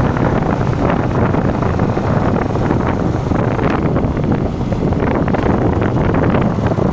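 Steady, loud wind noise buffeting the microphone of a moving motorcycle, a dense low rumble with hiss above it.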